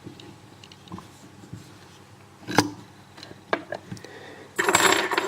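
Scattered small metallic clicks and knocks as a cutaway dimple lock is handled and set in a vise, the sharpest about halfway through; near the end a bunch of keys jangles.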